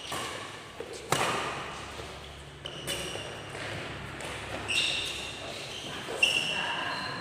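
Badminton rally: sharp racket smacks on the shuttlecock, loudest about a second in and again a little after six seconds, with sneakers squeaking on the court floor in between, echoing in a large hall.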